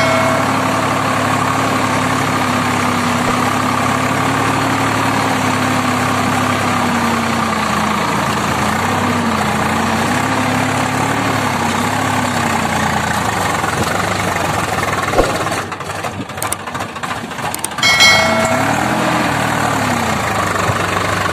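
Swaraj 744 XT tractor's three-cylinder diesel engine running while the tractor works through a flooded paddy field. The engine note is steady at first, then rises and falls repeatedly in pitch as the revs change. It drops away and breaks up for a couple of seconds about three-quarters through. A short chime sounds at the very start and again just before the end.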